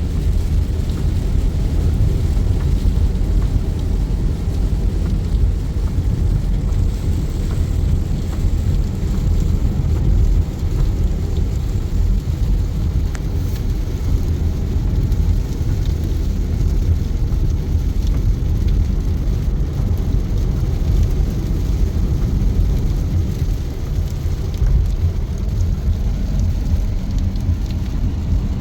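A car driving at motorway speed in heavy rain: a steady low rumble of road and tyre noise with the hiss of rain and spray on the car.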